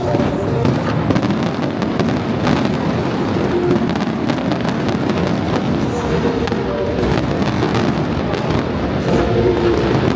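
Fireworks going off in rapid succession, a continuous dense crackling with bangs, over the show's accompanying music.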